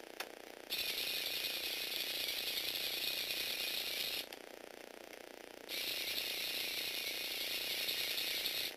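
Small electric motor and plastic gear train of a motorised Lego Technic robot whirring, stopping for about a second and a half midway, then running again. A single click comes just before it first starts.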